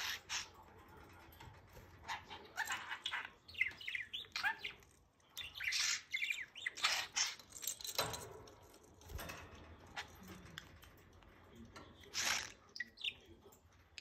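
Budgerigar chirping and chattering in quick runs of short, gliding notes, with a lull in the middle and one more burst near the end.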